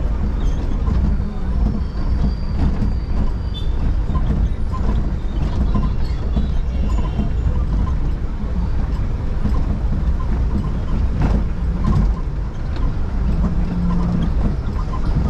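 Steady low rumble of a vehicle driving slowly through dense street traffic, with the engine and road noise of cars and motorcycles around it.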